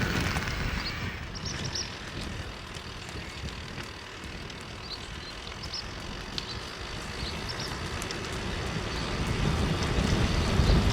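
Wind buffeting the microphone over a low rumble while riding a recumbent trike; it eases off about a third of the way in and grows louder again near the end. A few faint, short high chirps sound through it.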